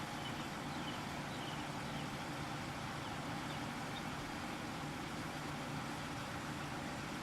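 A motor vehicle engine idling steadily with a low, even hum.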